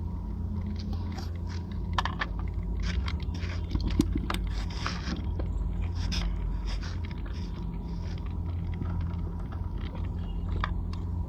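Close handling noises: irregular clicks, crackles and scraping over a steady low rumble, with sharper clicks about two and four seconds in.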